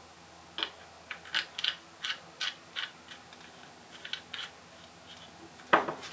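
Gerber Exchange-A-Blade saw being handled while its blade is taken off and swapped: a string of light clicks and scrapes of blade and plastic handle, then one louder, sharper click near the end.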